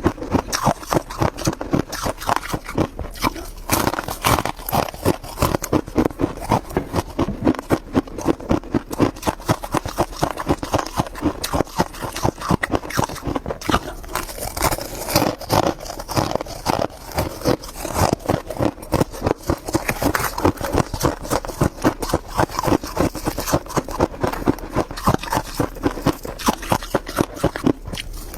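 Close-up chewing of crunchy freezer frost: rapid, steady crunches, several a second.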